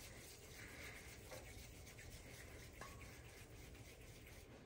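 Faint, repeated rubbing of oiled palms rolling a small ball of gulab jamun dough.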